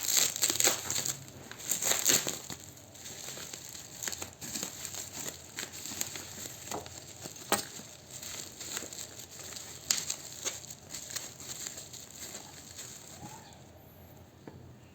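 Plastic packaging crinkling and rustling as it is handled, with scattered clicks and taps. Busiest and loudest in the first few seconds, then sparser and quieter.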